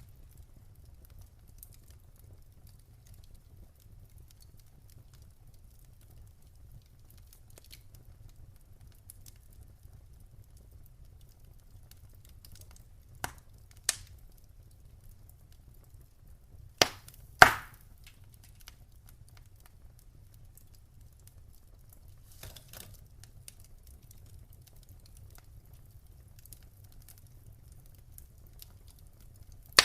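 Wood fire crackling softly over a steady low rumble, with scattered faint ticks and a cluster of four sharp pops about halfway through, the last the loudest.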